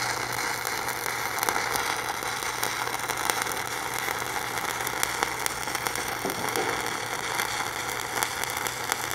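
Stick (shielded metal arc) welding arc crackling steadily with many sharp pops as the electrode runs a fillet bead. The arc is held long, with travel too fast and amperage set above normal: the conditions that cause undercut and excess spatter. A steady low hum runs underneath.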